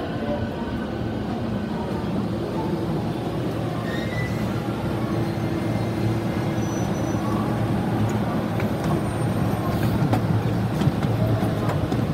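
JR Sōbu Line commuter train moving alongside the platform: a steady rumble of wheels and running gear with a low hum underneath.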